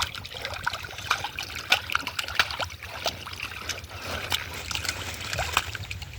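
Shallow water being splashed and stirred by hands groping for fish: irregular small splashes and drips over a steady trickle.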